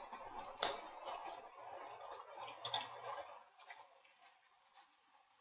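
Rain falling: a dense patter of drops that fades out after about three and a half seconds.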